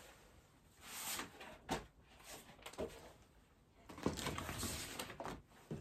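Faint handling noise of large kamishibai picture cards rustling and sliding against a wooden kamishibai stage, with a few light knocks.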